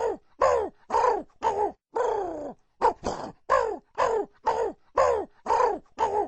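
Crow cawing in a long run of harsh calls, about two a second, each falling in pitch, with one longer drawn-out caw about two seconds in.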